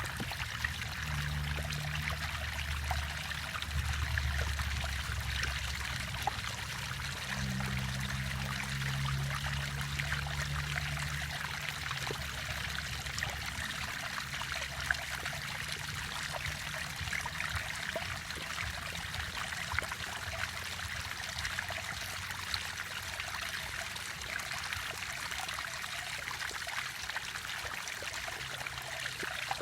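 River water flowing and splashing, a steady rushing sound. A low rumble sits underneath during the first twelve seconds or so, then fades.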